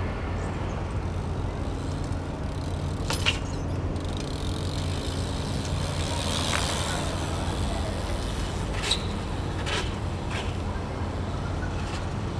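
BMX bike being ridden on pavement: a steady low rolling rumble with a few sharp clicks and knocks scattered through it.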